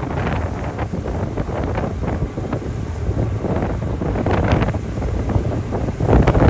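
Gusty wind buffeting the microphone aboard a large ferry under way in choppy seas, over a steady low rumble, with stronger gusts about four and a half seconds in and near the end.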